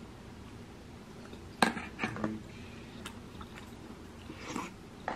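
A person chewing a mouthful of tteokbokki, with one sharp click about a second and a half in and a few softer clicks after it.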